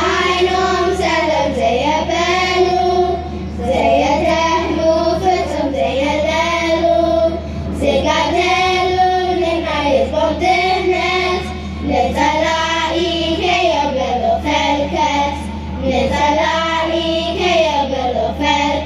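Children's choir singing together, phrase after phrase, with short breaths between phrases. A steady low hum runs underneath.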